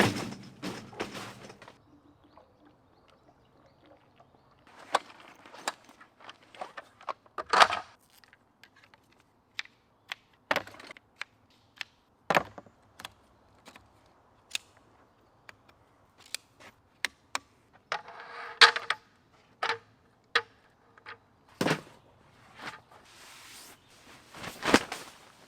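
Irregular sharp clicks and knocks of camping gear being handled and put together, with a few louder thumps and a brief rustle partway through.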